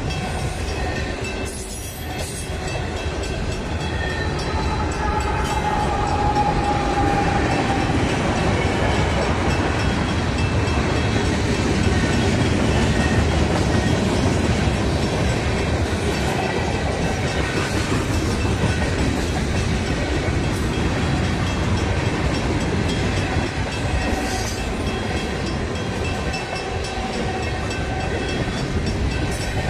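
Freight train cars (autoracks and tank cars) rolling past close by: a steady, loud rumble of steel wheels on the rails that holds without a break.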